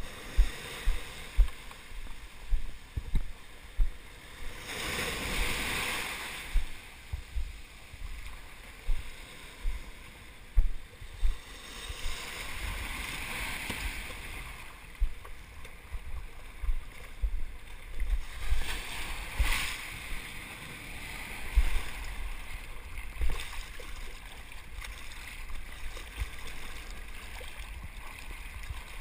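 Sea water sloshing and splashing close around a surfboard as it is paddled through small surf, with frequent short low thuds. Longer surges of rushing whitewater come about five, thirteen and nineteen seconds in.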